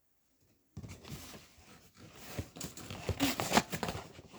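Plastic packaging crinkling as it is handled and opened, starting about a second in as a dense run of crackles.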